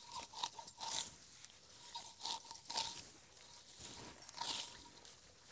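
Hand sickle cutting green grass: several short, crisp rasping cuts through the stems at uneven intervals.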